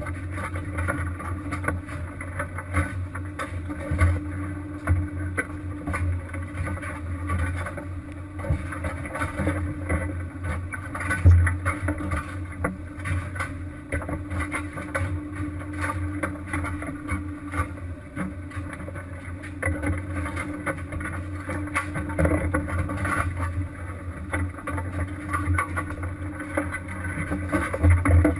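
A crab-fishing boat's engine runs with a steady low drone, with frequent irregular knocks and clatter on top.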